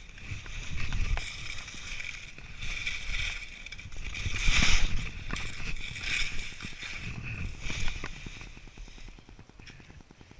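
Skis hissing and scraping over snow during downhill turns, with wind rumbling on the camera microphone; the noise surges and fades several times, loudest about halfway through.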